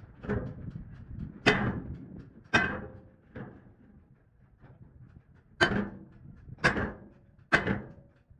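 Hammer blows on a bent metal truck fuel tank, being beaten back into shape. About seven sharp strikes land roughly a second apart, each ringing briefly, with a short pause in the middle.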